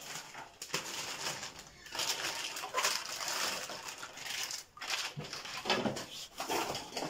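Frozen chicken legs being handled by hand in a plastic bucket: irregular rustling, scraping and knocking of the pieces against each other and the plastic.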